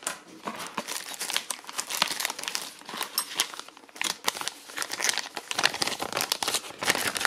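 Plastic packaging bag crinkling and rustling as it is handled and lifted out of a small cardboard box, a dense run of irregular crackles.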